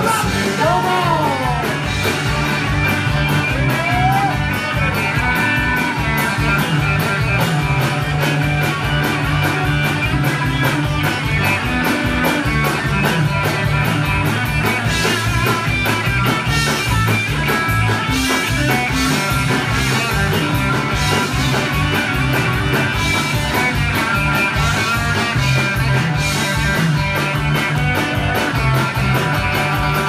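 Live rock band playing amplified guitars over drums with a fast, steady beat, loud in a crowded room.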